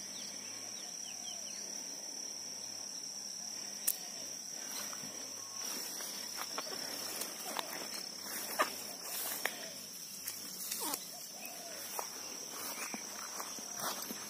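Steady high-pitched chirring of insects, with footsteps and rustling through grass in the second half.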